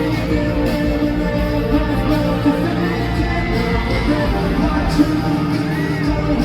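Live K-pop song played loud over a concert sound system, with a voice singing over the backing track.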